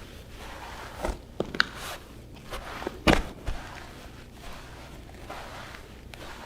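Bare feet walking on soft carpet: soft, muffled footfalls in a steady pace. A few sharper taps or creaks come between about one and three and a half seconds in, the loudest about three seconds in.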